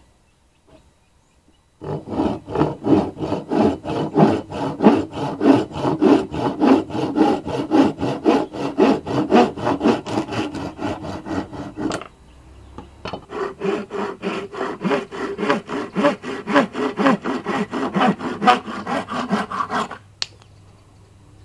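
Freshly sharpened wooden-handled hand saw cutting through timber with rapid, steady back-and-forth strokes. Sawing starts about two seconds in, breaks off briefly about halfway, then resumes on a second piece of wood and stops shortly before the end.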